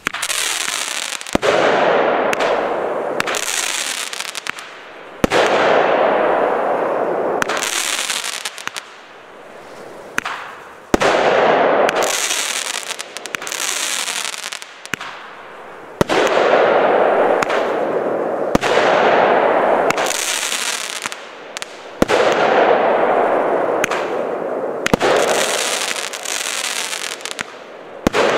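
A 30-shot consumer fireworks cake firing shot after shot, about a dozen launches one every two to three seconds. Each starts with a sharp report and trails a hiss for a second or two that fades before the next shot.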